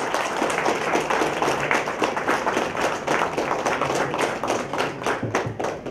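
Audience applauding, a dense patter of many hands clapping that thins to a few scattered claps near the end.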